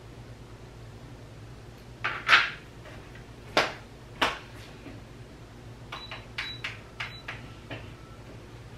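Several loud knocks and clatters, then a quick run of about six button clicks, some with a short high beep, as on a beeping electronic keypad.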